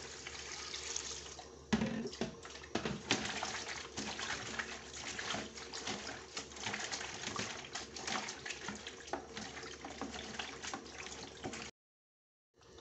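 Water poured from a plastic dipper into a plastic basin of leafy greens, then splashing and sloshing as a hand swishes the leaves through the water to wash them. The sound cuts off suddenly about a second before the end.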